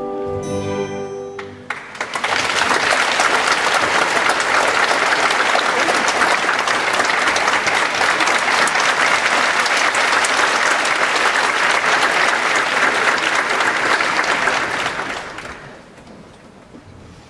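Orchestra closing on a held final chord, then a theatre audience applauding steadily for about thirteen seconds before the clapping dies away near the end.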